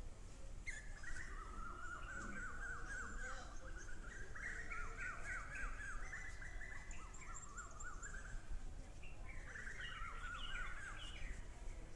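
Wild birds singing: several phrases of rapid, repeated chirping notes, starting about a second in, running through the middle and coming again near the end, over a steady low background rumble.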